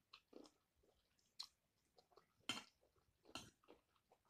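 Faint chewing of a mouthful of shrimp fried rice, with small wet mouth smacks and clicks; two louder sharp clicks come about two and a half and three and a half seconds in.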